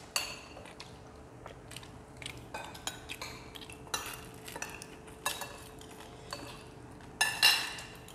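Metal spoons clinking and scraping against ceramic plates and bowls during a meal: scattered light clicks, with a louder run of ringing clinks about seven seconds in.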